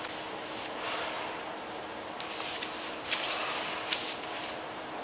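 Paintbrush swishing in repeated strokes as it spreads aircraft paint stripper over a painted car hood, with a few small clicks and a faint steady hum underneath.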